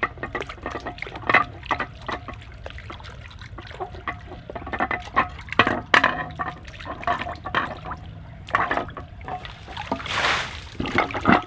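Water splashing and sloshing in a shallow bird bath as a hand scrubs slime off the rocks in it. About ten seconds in, a hose spray wand sprays water onto a rock for about a second.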